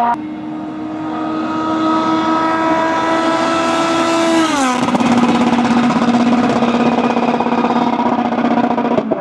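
Citroën DS3 WRC rally car with a 1.6-litre turbocharged four-cylinder engine, passing at speed at steady high revs. The engine note grows louder as the car approaches. About halfway through it drops sharply in pitch as the car goes past, then carries on steady as the car moves away.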